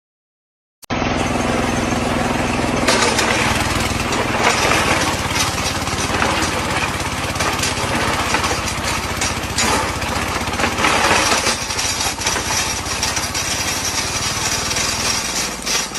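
A loud, steady running machine, engine-driven with a rattling, noisy character, starting abruptly about a second in.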